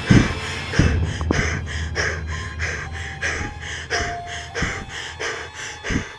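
A person panting hard and fast, about two and a half breaths a second, with dull low thumps and a faint held tone underneath.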